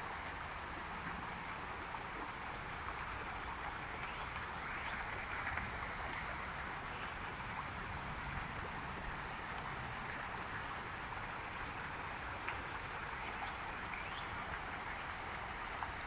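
Steady rush of a waterfall, with a few faint bird chirps above it.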